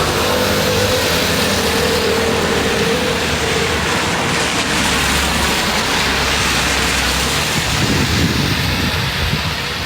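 Street traffic in heavy rain: a large vehicle's engine runs close by with tyres hissing on the wet road, its engine tone fading about three seconds in, over a steady wash of rain noise.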